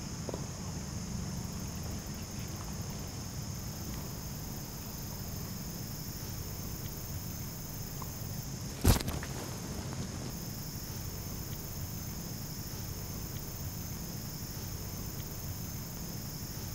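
A compound bow shot: one sharp snap about nine seconds in, over a steady high chorus of insects.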